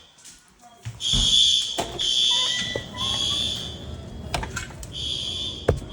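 Fire alarm sounding in a three-beep pattern: three shrill beeps of about a second each, a pause, then the next set of beeps starting near the end. This is the standard evacuation signal. Two sharp knocks are heard during the pause.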